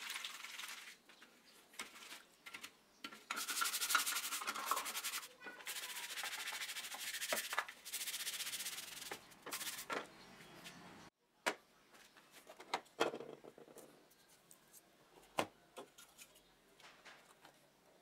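Plastic battery-pack housing parts being scrubbed by hand in soapy water in a stainless steel tray: a rasping scrub in long stretches with short pauses. Partway through, scattered clicks and knocks of the plastic pack being handled take over.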